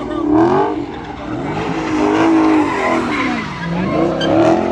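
A car doing donuts, its engine revving hard and its tyres squealing as they spin on the pavement. The engine pitch keeps swinging up and down, and a little past three and a half seconds it drops sharply before climbing again.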